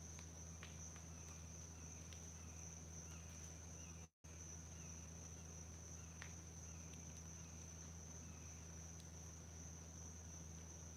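Faint insect chorus outdoors: a steady high-pitched drone, with a fainter short chirp repeated about once a second and a low steady hum underneath. The sound cuts out for an instant about four seconds in.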